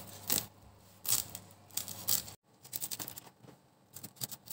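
Kitchen knife cutting through crisp wafer cake sheets layered with minced meat on a wooden board: three crunching strokes, then, about halfway through, a run of small crackling clicks as the wafer breaks under the blade.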